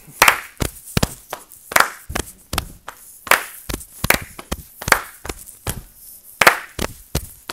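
Body percussion in a steady repeating rhythm: hand claps mixed with pats on the chest and slaps on the thighs, with more than one part layered together.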